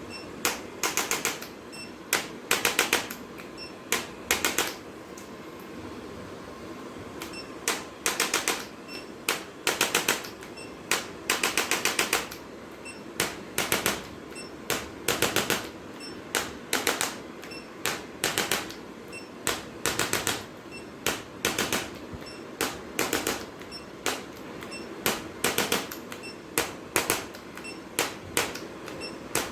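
Rapid mechanical clicking in short bursts of several clicks each, repeated irregularly about once a second.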